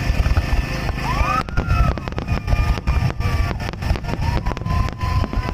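Fireworks going off: a dense low rumble of booms with rapid crackling, and several whistling shells gliding up and down in pitch.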